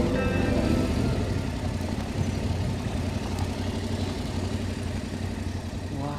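Yamaha Ténéré 700 parallel-twin motorcycle engine idling steadily, slowly fading down in level.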